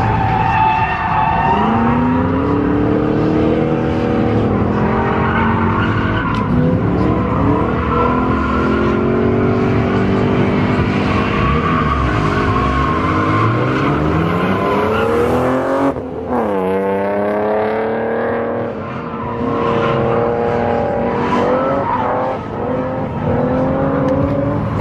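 1978 Mercedes-Benz 450SLC's 4.5-litre V8 revving hard on a drift run, its pitch rising and falling with the throttle, with the tyres squealing as the car slides. About sixteen seconds in, the revs drop suddenly and then climb again.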